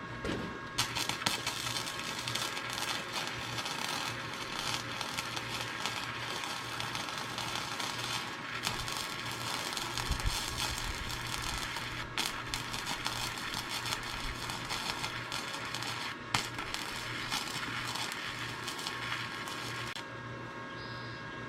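Wire-feed welder arc crackling steadily as a bead is laid, starting about a second in, breaking off briefly twice and stopping near the end. The coach judges this bead run too fast.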